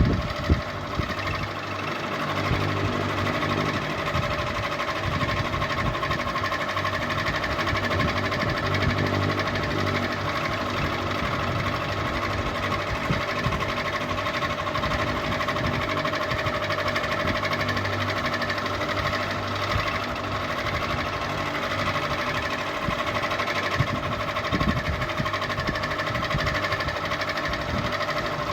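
Ceiling fan running continuously: a steady motor whir with several held tones and a fast, fine rattle underneath.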